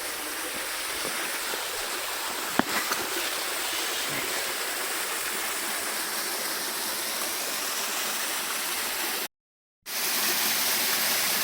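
Steady rushing of a waterfall and stream, with a single sharp knock about two and a half seconds in. The sound cuts out completely for about half a second near the end, then the water resumes.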